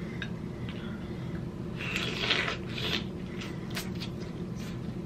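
King crab claw being picked apart by hand, with a rustling crackle of shell and meat about two seconds in, then a few sharp clicks and wet bites as the meat is eaten near the end.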